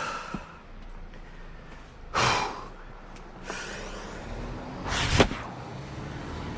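Firewood being split by hand: heavy, forceful breaths of effort and a sharp strike into the wood about five seconds in.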